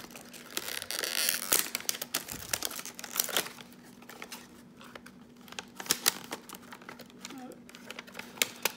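Foil and cardboard trading-card packaging crinkling and tearing in the hands as a jumbo pack of football cards is opened from the bottom and the stack of cards is slid out, with many sharp crackles and short rustles.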